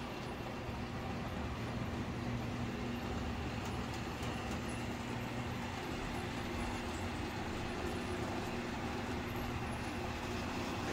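Toy trains running on a large model railway layout: a steady electric whirring rumble with a constant low hum.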